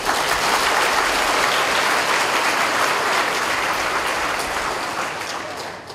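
Large audience applauding and laughing, the clapping dying away near the end.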